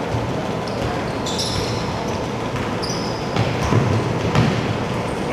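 Basketball bouncing on a hardwood gym floor during a scrimmage, with short high sneaker squeaks and the steady noise of a large hall. The heaviest thuds come a little past halfway.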